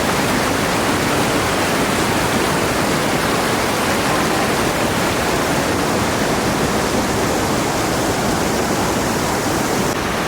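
Small waterfall with a steady, loud rush of falling water.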